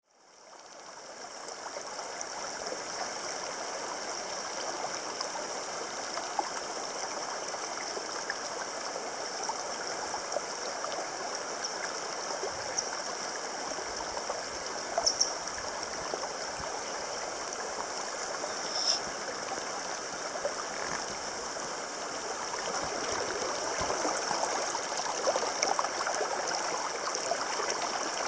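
Mountain stream running over a shallow, stony riffle: a steady rush of water that fades in over the first couple of seconds.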